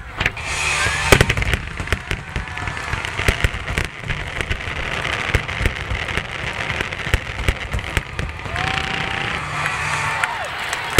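Fireworks display: many shells bursting in quick succession, sharp bangs over a continuous crackle of sparks.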